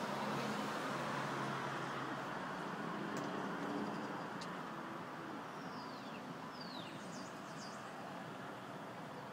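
Steady background traffic noise from passing road vehicles. About halfway through there are two short, high chirps falling in pitch, followed by a few fainter high chirps.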